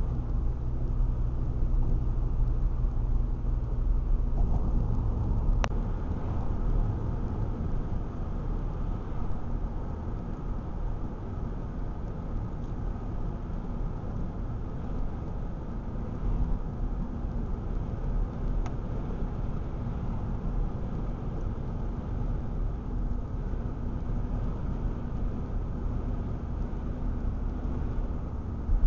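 Car cabin noise while driving at road speed: a steady low drone of engine and tyres on the road. A single faint click comes about six seconds in.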